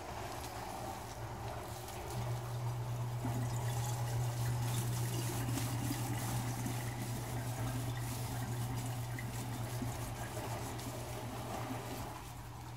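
Tap water running from a faucet into a sink. It carries a steady low hum and grows louder about two seconds in, then holds steady.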